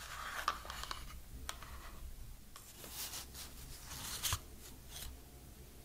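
Paper packaging rustling and scraping as a white paper wrap is handled and peeled off an earbuds charging case, with a few sharp clicks, the loudest about four seconds in.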